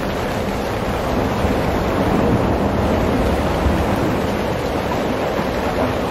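Strong wind buffeting the microphone: a steady, loud rushing rumble that swells a little for a couple of seconds in the middle.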